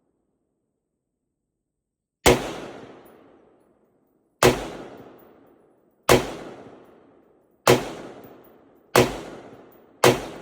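Diamondback AR-15 rifle fired six times in slow, single shots, starting about two seconds in and coming every one and a half to two seconds. Each report rings out and dies away over a second or so.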